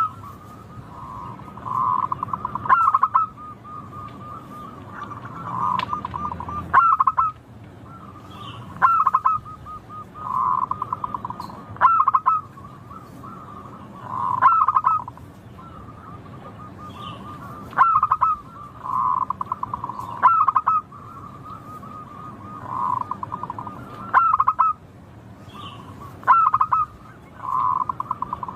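Zebra dove cooing over and over: a phrase about every three seconds, each a quick stuttering run of notes at one pitch.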